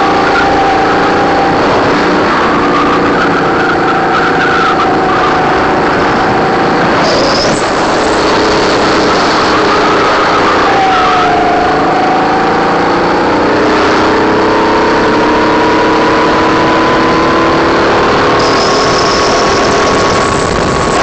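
Racing kart's engine heard from on board at close range, running hard. Its pitch drops as the kart slows for a corner about halfway through, then rises steadily as it accelerates out.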